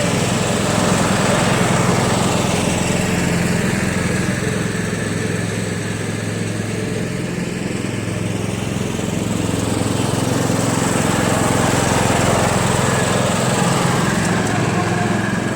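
Tecumseh 13.5 hp engine of a Yard Machines lawn tractor running steadily. Its level dips in the middle and swells again later, as the tractor moves.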